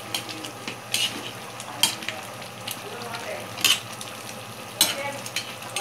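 Spoon stirring a pan of simmering chicken curry, with a steady sizzling hiss underneath. The spoon scrapes sharply against the metal pan about four times.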